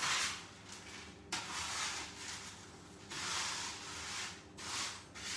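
A spatula scraping and turning partly baked granola of oats, seeds and chopped hazelnuts on a baking tray, the dry mixture rustling: four scrapes of uneven length.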